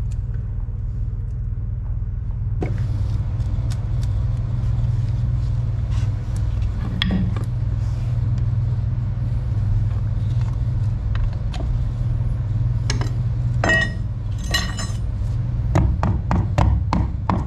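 A steady low machine rumble throughout, with scattered metal clicks and scrapes as a prying tool works at the flange of an old boat shaft stuffing box to break it loose. The clicks grow more frequent near the end.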